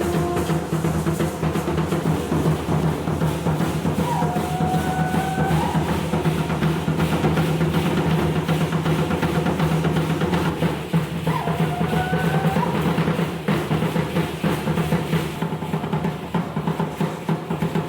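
Music with busy, rapid drumming on a drum kit, over a steady low tone, with a few short melody notes that slide between pitches.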